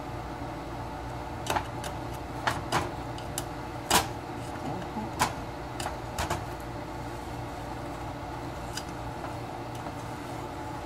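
Wooden spoon stirring sugar as it melts into caramel in a stainless steel pot, knocking and scraping against the pot about ten times in the first seven seconds, the loudest about four seconds in, with one more knock near the end. A steady hum underlies it.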